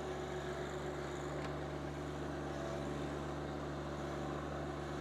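John Deere 1025R compact tractor's three-cylinder diesel engine running at a steady, unchanging pitch.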